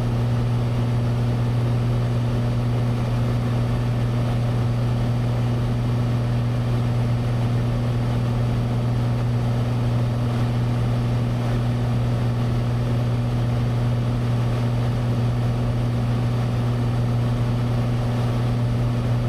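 Cessna 182's single piston engine and propeller giving a steady, unchanging drone in flight, heard inside the cabin. A deep hum sits under a wash of engine and air noise.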